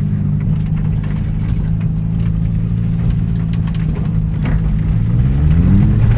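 Peugeot 106 engine running steadily at low revs, heard from inside the cabin while driving off-road, then revving up near the end as its pitch rises. A few light knocks and rattles from the car can be heard along the way.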